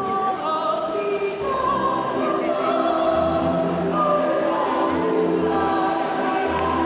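A choir singing in several parts, with long held notes.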